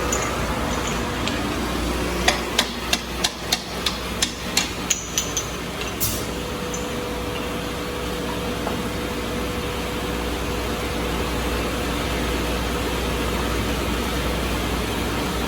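A hammer striking metal about ten quick times in three seconds, knocking the diamond segments on the underside of an HTC 800 floor grinder to change them. A steady hum continues underneath.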